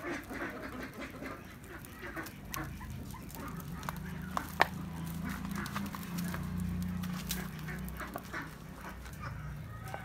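Wood fire burning in a homemade brick rocket stove, a low steady rumble that builds about three seconds in and eases near the end. A few sharp crackles, the loudest just under halfway through.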